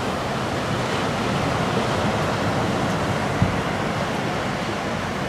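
Ocean surf breaking and washing ashore in a steady rush, with wind rumbling on the microphone.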